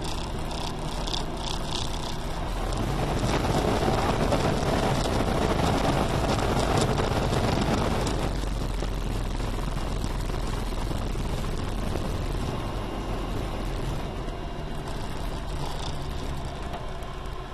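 Diamond HK36 Super Dimona motor glider's piston engine and propeller droning steadily in flight, with a broad rush of noise over it. It grows louder for about five seconds from around three seconds in, then settles back.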